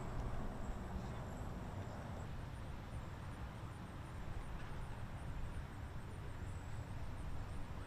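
Steady background noise, a low rumble with a faint hiss, without distinct events.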